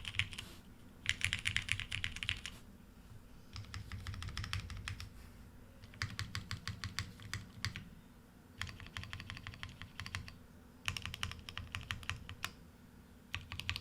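Typing on a custom mechanical keyboard with lubed Cherry Hyperglide Black linear switches on an O-ring-mounted polycarbonate plate: quick runs of keystrokes broken by short pauses.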